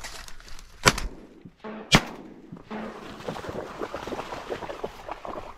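Two shotgun shots about a second apart, fired at incoming ducks, followed by a quieter run of rapid short sounds.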